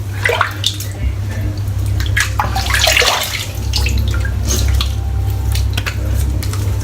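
Water running from a tap, with irregular splashing as the shaver rinses at the sink.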